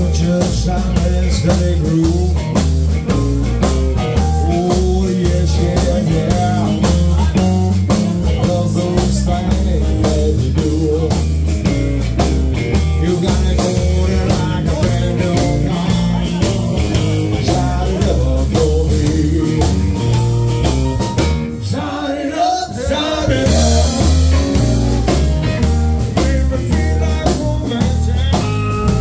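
Live blues-rock band playing: electric guitar, bass and drum kit, with the drums keeping a steady beat. The music thins briefly about three-quarters of the way through, then comes back fuller.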